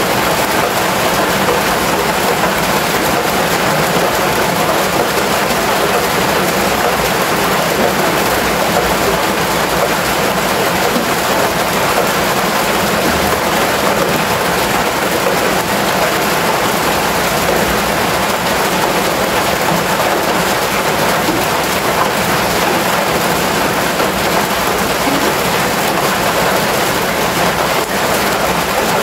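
Loud, steady rain on a corrugated metal roof, an even hiss with no let-up.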